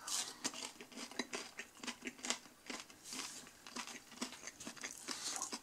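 Faint irregular clicks and crinkles of hands handling a cardboard takeaway box and a breaded chicken strip, with a short papery rustle about three seconds in.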